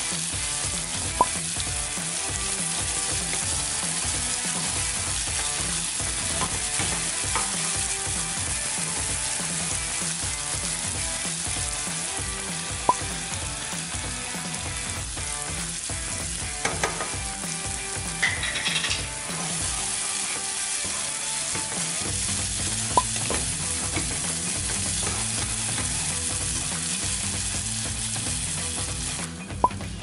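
Chili spice paste frying with a steady sizzle in a pot while a wooden spatula stirs it, knocking against the pot a few times. Just before the end the sizzle drops sharply as watery liquid is poured in.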